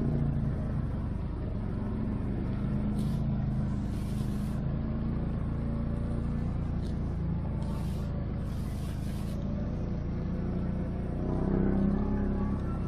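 ATV engine running at a steady low drone, swelling briefly near the end.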